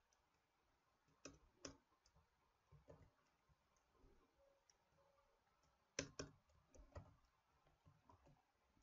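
Faint, scattered clicks of a computer keyboard and mouse, coming a few at a time in small clusters, with near silence between them.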